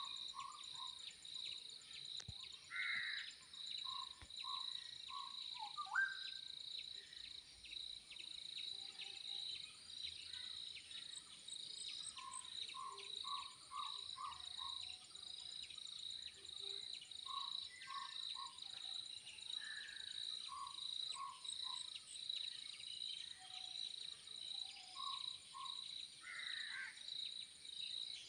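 Crickets chirring in a fast, steady pulse, with a bird calling every few seconds in short runs of four to six quick notes and now and then a brief rising call.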